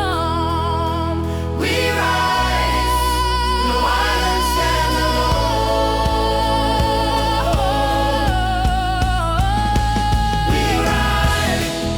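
AI-generated gospel-style song: a voice holds long, wavering sung notes with no clear words over sustained low chords.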